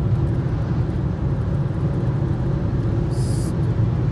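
Steady road and engine noise heard from inside a car cruising at motorway speed, mostly a low rumble, with a brief high hiss about three seconds in.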